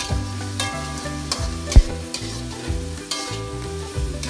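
A metal spatula scraping and clattering against a wok as shrimp and aromatics are stirred in sizzling oil, with one sharp, loud knock a little under two seconds in.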